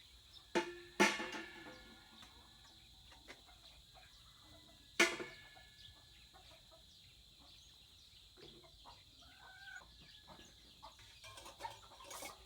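Kitchenware clinking: two sharp clinks with a brief ring, under half a second apart, near the start, and a third about five seconds in, then a few light knocks and rattles near the end.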